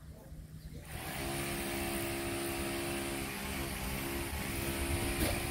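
A motor engine running at a steady pitch, coming in about a second in and holding steady.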